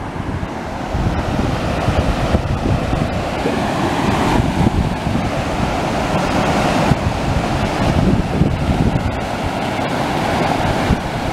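Mountain creek cascading down bare rock slabs: a steady rush of whitewater, with wind buffeting the microphone.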